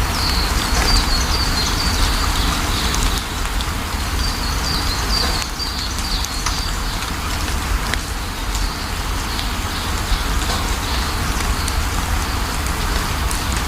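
Steady rain falling, with a bird chirping in quick runs of short high notes several times, and a low rumble underneath.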